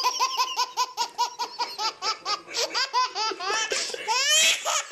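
A baby laughing hard in a quick run of short, breathy bursts, about five a second, that ends in a longer rising squeal near the end.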